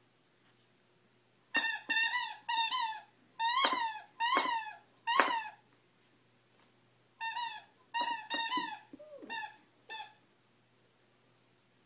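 A dog chewing a plush squeaky toy, the squeaker giving short, high squeaks in quick runs: about seven in a row, a pause of a couple of seconds, then about six more, one of them sagging lower in pitch.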